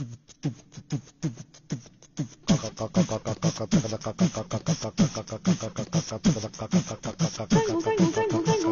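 Background music with a steady electronic beat: deep kick-drum hits that drop in pitch and crisp hi-hat ticks. The beat fills out and gets louder about two and a half seconds in, and a melody comes in near the end.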